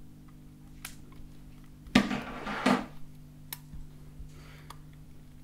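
Handling noises from over-ear headphones and a small portable player: a few light clicks and about a second of rustling near the middle, over a steady low electrical hum.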